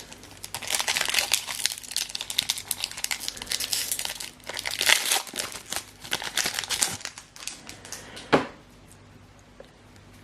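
Foil booster pack wrapper of a Pokémon trading card pack crinkling and tearing as it is opened, a busy crackle for about seven seconds with one sharper rustle near the end, then quieter.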